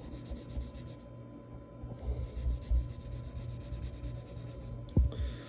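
Graphite pencil shading lightly on paper with the side of the lead, a soft scratchy rubbing, with a light knock about five seconds in.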